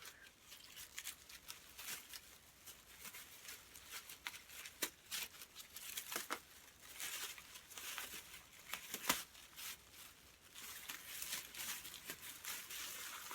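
Plastic bags and food wrappers crinkling and rustling as they are handled and opened, in a run of irregular crackles with a few sharper snaps.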